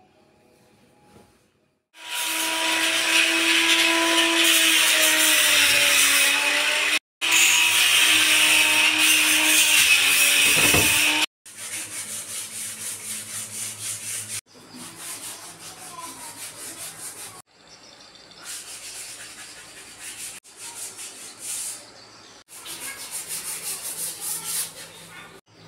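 Kitchen wall being sanded ahead of repainting. About two seconds in, an electric power tool runs loudly and steadily for several seconds. After that comes sandpaper rubbed by hand over the wall in quick back-and-forth strokes, about three a second.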